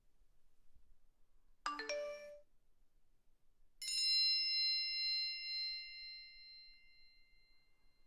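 Phone alert sound effect: a quick run of a few chime notes, then a single bright bell-like ding that rings on and fades away over several seconds.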